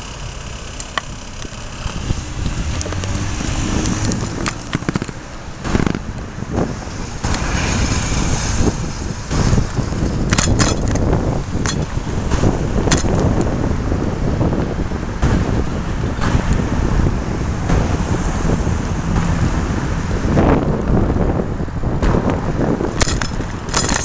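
Ride noise from a handlebar-mounted camera on a moving bicycle: wind rumbling on the microphone that builds as the bike gets going about two seconds in, with frequent sharp rattles and knocks from the bike and mount over the road surface, and road traffic underneath.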